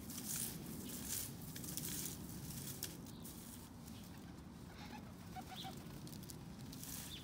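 A broom sweeping fallen leaves on asphalt: scratchy brushing strokes about two a second, growing fainter after the first few seconds. A few faint short chirps come about five seconds in.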